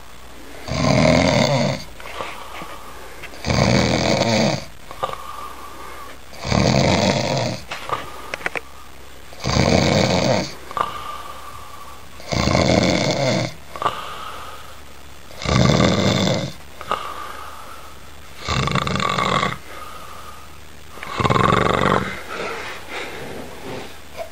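A sleeping man snoring loudly in a steady rhythm: eight heavy snores about three seconds apart, each about a second long, with quieter breathing between them.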